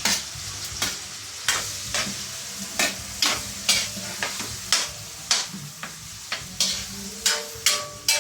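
Spatula stirring and scraping in a frying pan, a stroke every half second or so, over steady sizzling of pork and eggplant frying with shrimp paste.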